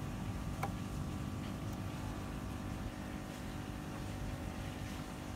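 Yamaha 40 hp outboard motor running steadily at idle, with a light click a little over half a second in.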